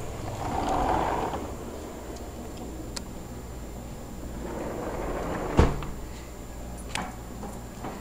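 A screen door swinging shut and banging against its frame about five and a half seconds in, with a few lighter clicks before and after.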